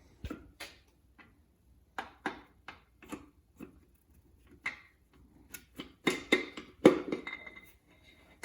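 Connecting rod and piston being worked out of a 4.6L engine block and handled: scattered light metal clicks and taps, then a few louder clanks about six to seven seconds in that ring briefly.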